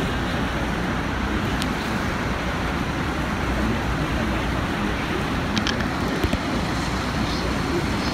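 Steady, unbroken rushing noise of Niagara Falls pouring into the churning water at its base, heard up close from a tour boat, with a few faint clicks about a second and a half in and again around six seconds in.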